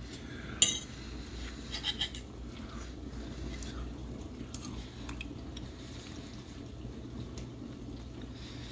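A single sharp clink of cutlery against a plate about half a second in, then a few fainter clicks a second later, over a low steady background hum.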